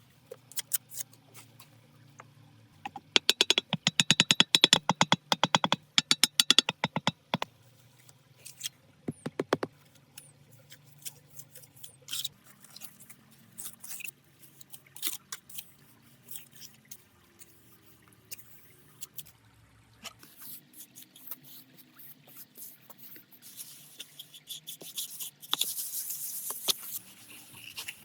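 Rapid runs of sharp clicks and taps, then scattered taps and scrapes, with a brief hissing rush near the end.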